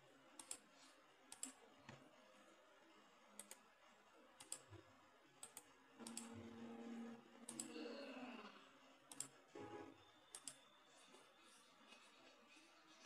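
Faint computer mouse button clicks: about a dozen single clicks at irregular intervals, some in quick pairs. A soft low noise runs for a couple of seconds from about six seconds in.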